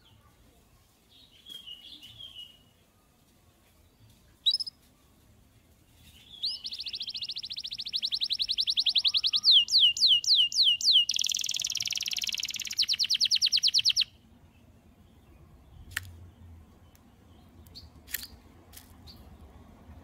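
Canary singing a long song of fast trills, with a slower run of sweeping notes in the middle; the song starts about six seconds in, lasts about eight seconds and cuts off sharply. A few short chirps come before and after it.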